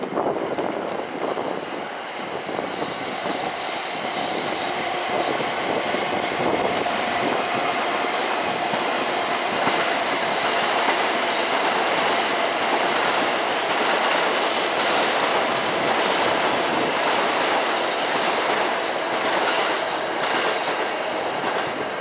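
Electric commuter trains passing on the tracks below, among them a yellow-striped JR Chūō-Sōbu Line train: wheels running over the rails in a steady loud rush that builds over the first few seconds and eases near the end. A held tone rides over it for several seconds in the first half.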